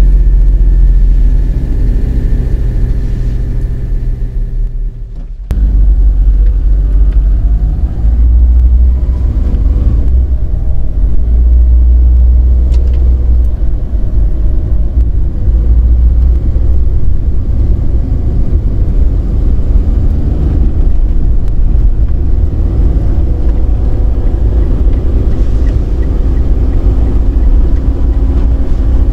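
Engine and road rumble of a cab-over truck being driven, heard from inside the cab. The low, steady drone dips for a moment about five seconds in, then comes back at full level.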